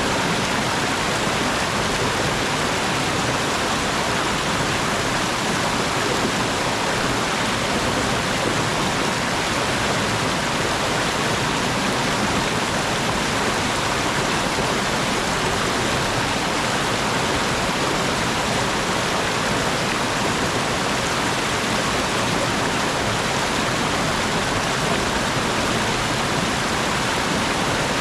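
Mountain stream and waterfall: a steady rush of water falling and flowing over rocks.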